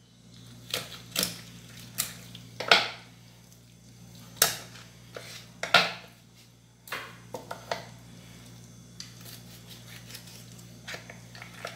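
Kitchen knife cutting up a raw chicken on a wooden cutting board, the blade knocking against the board in a series of separate sharp knocks, fewer after about eight seconds. A steady low hum runs underneath.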